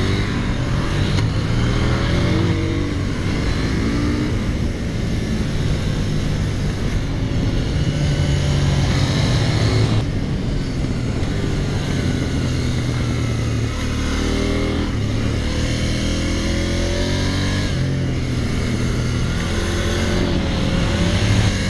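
KTM 890 Duke R's parallel-twin engine under hard acceleration, revs climbing and falling back at each gear change, several times over.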